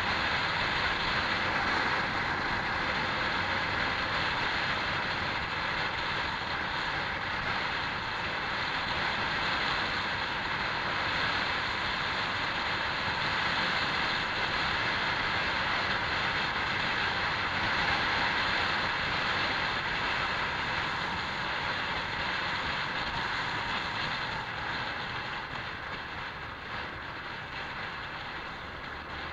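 Honda PCX scooter under way: its single-cylinder engine running steadily under the rush of wind and road noise at riding speed, easing off a little near the end.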